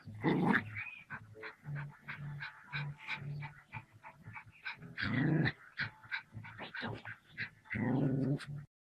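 A dog growling and panting in short bursts as it attacks a snake, with louder growls near the start, about five seconds in, and near the end.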